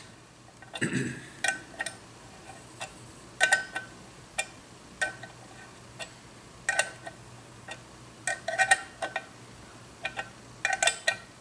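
Light metallic clinks, some single and some in quick clusters at irregular spacing, as a half-inch wrench works the locating bolt of a gearbox's reverse idler shaft, tightened by hand. A brief duller sound comes about a second in.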